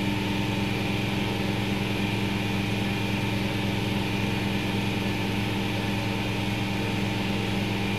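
Rug-washing machine spinning a washed rug to wring the water out: a steady motor hum at one constant pitch.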